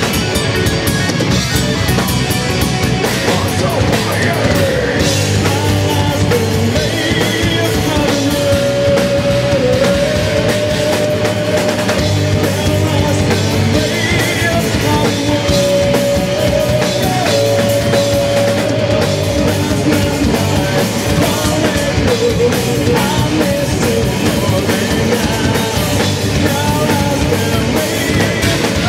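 Rock band playing live and loud: electric guitars over a drum kit, dense and unbroken, with a held melodic line running over the top.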